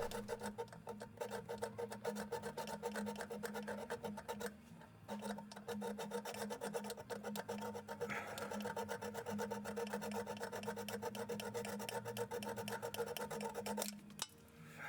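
A saw blade cutting through a steel threaded stud on a car's exhaust manifold, in fast, even rasping strokes. There is a brief pause about five seconds in, and the sawing stops near the end.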